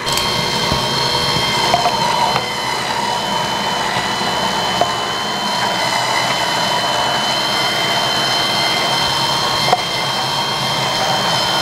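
Electric cold press (slow masticating) juicer running steadily while juicing apples: a constant motor hum with a steady high whine, and a few faint ticks as the fruit is ground.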